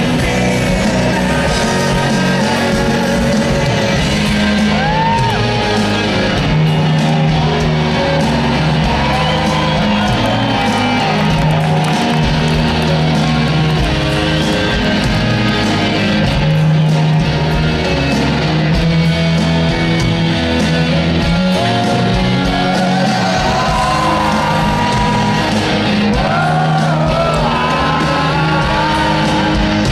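A rock band playing loud at a concert: electric guitars, bass and drums through the PA, with a singing voice over them.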